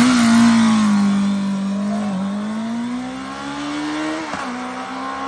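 Honda CB650R's inline-four engine, restricted to 35 kW for the A2 licence, accelerating hard from a standing start and revving up through the gears. The pitch breaks at two upshifts, about two and four seconds in, with a short pop at each shift.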